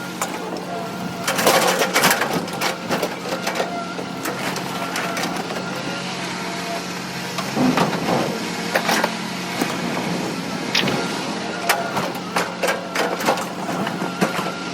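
A steady engine hum with scattered clanks and knocks of scrap metal being unloaded from a trailer onto the ground.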